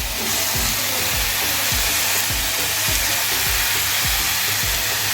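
Steady sizzling hiss from a hot cooking pan as the cauliflower stalks go in and a little water is added, over background music with a steady low beat.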